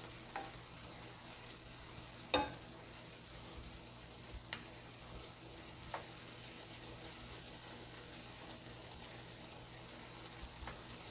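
Sliced mushrooms sautéing in a frying pan, nearly done, with a soft steady sizzle while a spatula stirs them. A few sharp taps and scrapes of the spatula on the pan stand out, the loudest about two seconds in.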